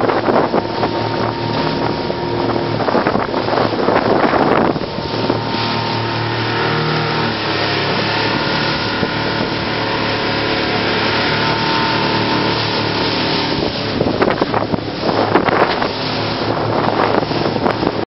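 Outboard motor running steadily at speed as a small boat crosses choppy sea, under the rush of water and wind on the microphone. Gusts of wind and spray noise are heaviest in the first five seconds and again near the end; the engine's even tone is clearest in between.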